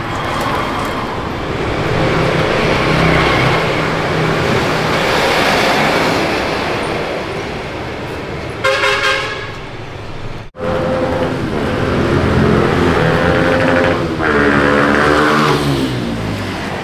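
Street traffic noise, with a short vehicle horn toot about nine seconds in, followed by the engine of a motor vehicle passing close by, its pitch bending as it goes.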